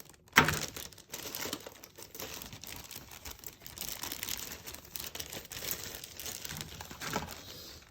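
Plastic parts bag being torn open and crinkled as model kit parts are handled, a dense run of crackling with a sharp loud crackle about half a second in.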